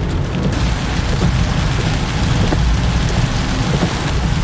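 Steady rain falling, with a constant low rumble underneath.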